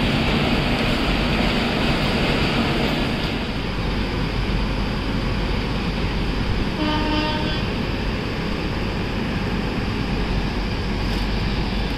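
Steady railway-station noise, and about seven seconds in, one short toot, under a second long, from the horn of a WAP-7 electric locomotive.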